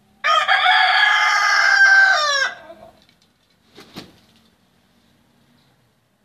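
Rooster crowing once: a single loud crow lasting about two seconds that bends down in pitch at the end. A short knock follows about four seconds in.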